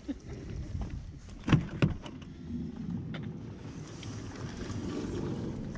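Minivan sliding side door being unlatched and opened: two sharp clunks, then a steadier rustling noise.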